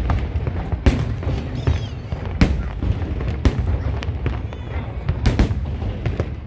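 Fireworks display: several sharp bangs of shells bursting, spaced irregularly about a second apart, two of them close together near the end, over a continuous low rumble.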